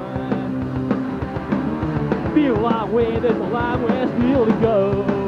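Live rock band playing: drums and electric guitars, with a melody line that bends in pitch through the middle.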